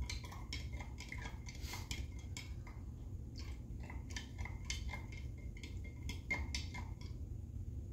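A metal spoon clinks and scrapes against the sides of a small glass jar in quick, irregular strikes, stirring fiber reactive dye powder into water to dissolve it. The clinking stops about seven seconds in.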